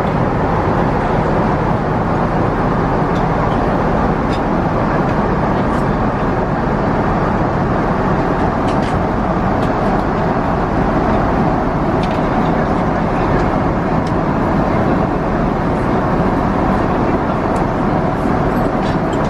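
Steady cabin noise of a Boeing 777-200 in cruise: the even rush of airflow and engines.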